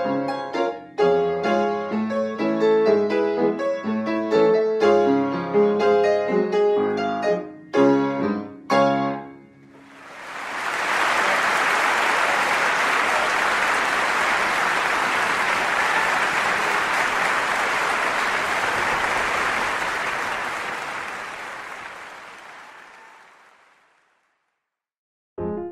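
Piano playing the last bars of a piece, closing on two struck chords about eight and nine seconds in. Applause follows for about fourteen seconds and fades out. A new piano piece starts right at the end.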